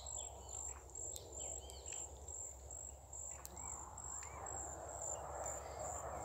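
Insects trilling: a steady high-pitched tone pulsing about twice a second, with short arching bird chirps over it in the first few seconds. From about four seconds in, a rustling noise grows louder.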